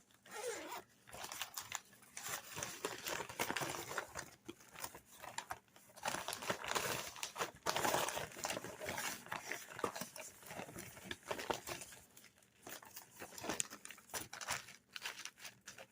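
Crinkling and rustling of packaging being handled, in irregular bursts.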